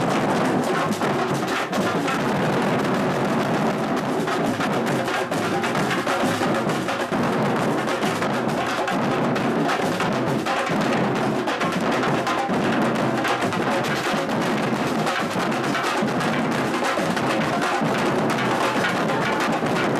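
Batuque drum ensemble playing a dense, continuous percussion groove, hand drums and wood-block-like strikes together.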